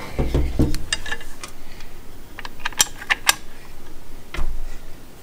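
Hands handling a cordless circular saw while fitting a blade: a run of sharp plastic and metal clicks and taps from the guard and blade parts, with low bumps against the table near the start and about four seconds in.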